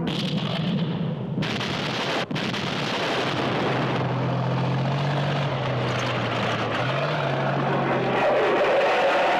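Jet fighters flying over: a steady rushing engine noise that sets in about a second and a half in, with a sweeping pass near the end.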